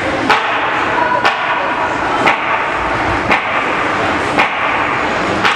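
Steady ice-arena background noise during a ringette game, with a sharp knock repeating evenly about once a second.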